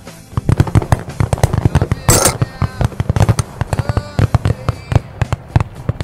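Shotgun fire from many guns around the field, a rapid, irregular string of pops, with one much louder close blast about two seconds in. Background music with singing plays under the shots.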